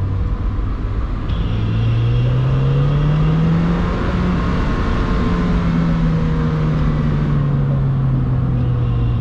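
Mazda Miata NB's four-cylinder engine accelerating, its pitch rising for a couple of seconds, then easing slowly back down as the car cruises or slows.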